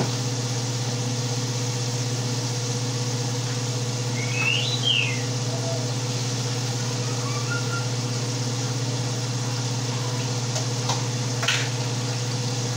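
Steady mechanical hum with a hiss, as from a running kitchen appliance or fan. About four and a half seconds in comes one brief high squeak that rises and falls, and near the end a few light clicks.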